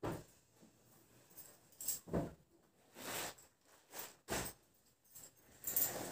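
Short bursts of cloth rustling and light knocks, about six of them, as clothes are handled and sorted on shelves. Near the end comes a louder jangling scrape as an eyelet curtain is put up on its rod.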